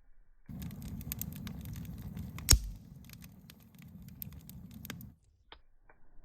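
Campfire crackling over a low rumble of flames, many small pops with one loud snap about halfway through; it starts and stops abruptly.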